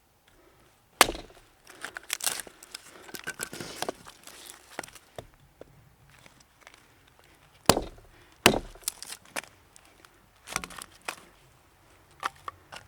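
Axe chopping and splitting a piece of wood on a chopping block: a few sharp strikes, one about a second in, two close together past the middle and another soon after, with smaller knocks and rustling of wood between them.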